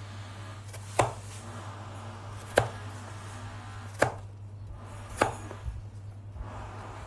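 Crinkle-cut chopper's wavy steel blade pressed down through jicama onto a plastic cutting board: four sharp chops about a second and a half apart, then a couple of lighter knocks, over a steady low hum.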